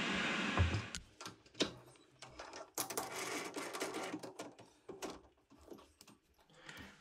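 Steel workpiece being fitted into a three-jaw lathe chuck and the jaws tightened with a chuck key: an irregular run of light metal clicks and knocks. A steady hiss stops about a second in.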